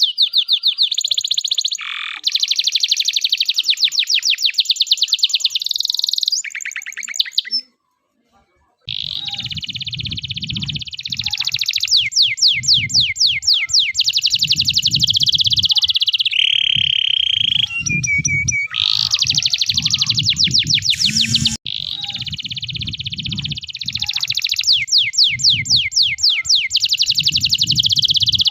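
Male domestic canary singing a long, continuous 'loper' song of high rapid trills and rolls, breaking off briefly about eight seconds in. After the break a low rumbling noise runs underneath the song.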